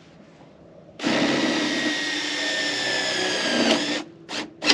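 Cordless drill driving a bolt into the grain bin wall, running steadily for about three seconds with its pitch sinking slightly before it stops abruptly. Two short clicks follow near the end.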